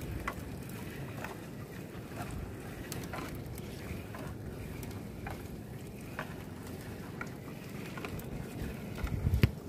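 Small fishing boat at sea while a sinking gill net is hauled aboard: wind on the microphone and water noise, with scattered small knocks and clicks of net and gear against the hull, and a louder thump a little over nine seconds in.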